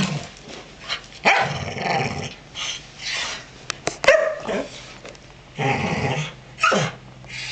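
Dogs growling and barking in rough play, in several short bouts.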